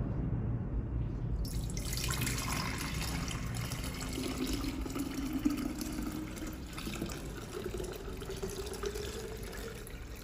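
Chicken broth poured from a pot through a mesh strainer into a glass pitcher: a steady splashing pour, with a tone that rises slowly in pitch as the pitcher fills.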